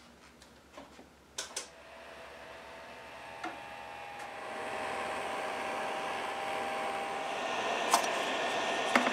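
Handheld electric heat gun running, its fan blowing with a steady whine that grows louder over the first few seconds as it is brought up to the wooden crown molding to heat it before prying. A couple of sharp clicks about a second and a half in, and two more near the end.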